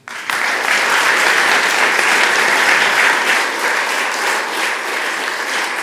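Audience applause, many hands clapping, breaking out all at once and going on steadily, easing off a little near the end.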